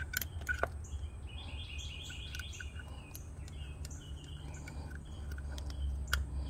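A few faint metal clicks as small screws are set into a VTC cam gear, over a low steady hum, with birds chirping in the background in short runs of chirps.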